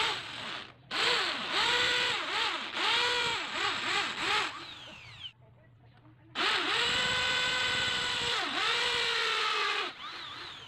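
Hammer drill with a 1/4-inch masonry bit boring into a ceramic stair tile. In the first run its whine sags and recovers in pitch again and again as the bit is pressed into the tile, then falls away as it spins down. A second, steadier run starts about six seconds in.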